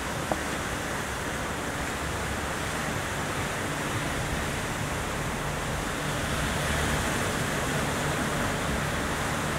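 Steady wash of rough surf breaking on the shore, an even rushing noise with no distinct waves standing out.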